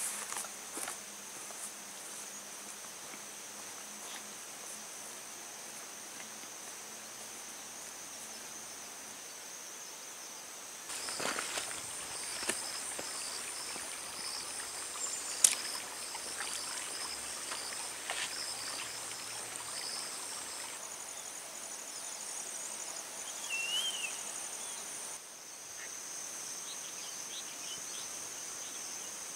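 Insects chirring in a steady high-pitched drone, with scattered sharp footstep clicks on rocks and stones partway through.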